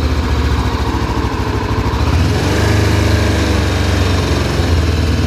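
Motorcycle engine running steadily, its throttle held by a home-made pipe-clamp throttle lock on the grip, with a slight waver in engine pitch around the middle.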